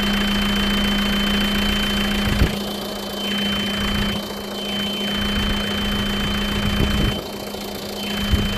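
Engine of a 2001 Hyundai Mighty rollback car carrier running steadily, with a constant low hum and a thin high whine, and a single knock about two seconds in.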